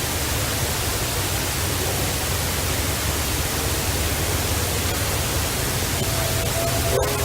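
Steady hiss over a low rumble, typical of a field recorder's gain turned up high. Near the end, faint drawn-out tones rise just above the noise.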